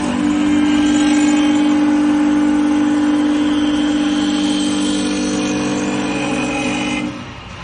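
CNC wood lathe's cutting motor running at high speed while machining wood: a steady high hum over a hiss of cutting. It cuts off about seven seconds in.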